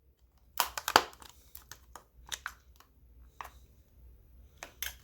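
Plastic parts of a Clover Flex payment terminal being forced apart by hand: sharp cracks and snaps, a cluster of loud ones about a second in, then scattered smaller clicks.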